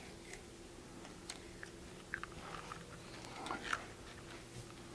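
Light scattered clicks and rustles of slit clear plastic coverings and straps being slid off the steel arms of a bow press, over a faint steady hum.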